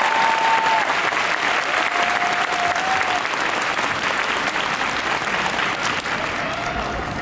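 Large crowd of spectators applauding, dense clapping that slowly dies down toward the end. A few long, high held calls rise over the applause.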